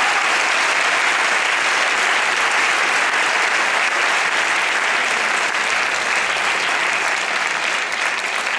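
Audience applauding: steady clapping that eases slightly near the end.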